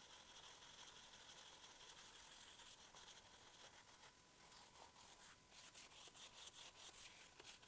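Faint scratchy rubbing on leather, a steady scrubbing hiss that breaks into quick short strokes, several a second, from about halfway through.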